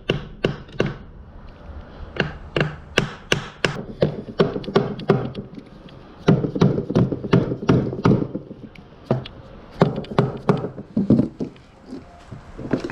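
Hammer tapping repeatedly on a Toyota Celica 6-speed manual transmission case: a long series of sharp knocks, a few a second, in runs with short pauses, to loosen the case before it is pried open.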